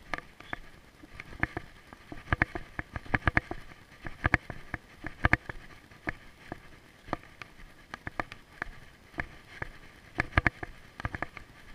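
Irregular sharp clicks and taps, often several a second in clusters, from walking a leashed dog along a concrete sidewalk with a body-worn camera: footsteps and the rattle of gear on the walker.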